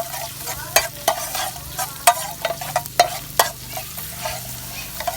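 Food sizzling in hot oil in a pan, with a metal spatula clicking and scraping against the pan at irregular moments as it is stirred.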